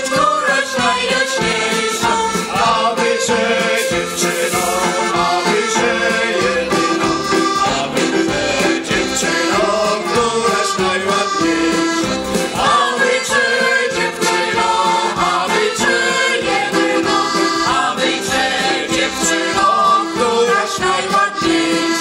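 A Polish folk ensemble, men and women, singing together to an accordion accompaniment.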